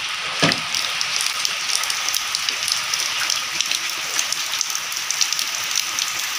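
Steady rain falling, a constant hiss peppered with many small drop ticks, with one short thump about half a second in.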